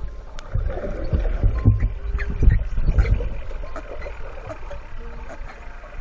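Muffled underwater water noise picked up by a GoPro in its housing: a low rumble with irregular dull thumps. The thumps are strongest from about half a second to three and a half seconds in, then ease off.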